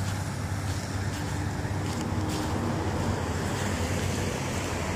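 Steady low rumble of road traffic on a highway, with a little wind on the microphone.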